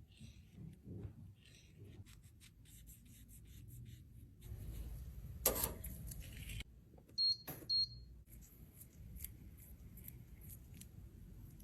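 Small clicks, taps and scraping of tools working crumbled eyeshadow in its pan. A sharp click comes about five and a half seconds in, and two short high beeps follow about two seconds later.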